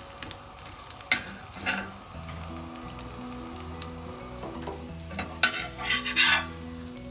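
A few short scrapes of a serving spoon against cookware while food is served, the loudest about a second in and a cluster between five and a half and six and a half seconds, over a faint hiss and soft background music.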